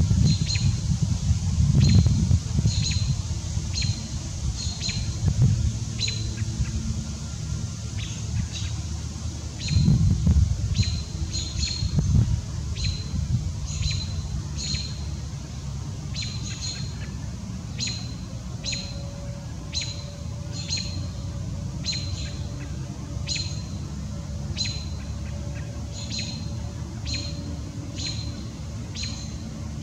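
A small bird chirping over and over, short sharp chirps coming irregularly about once a second, over a low outdoor rumble that is heavier in the first dozen seconds.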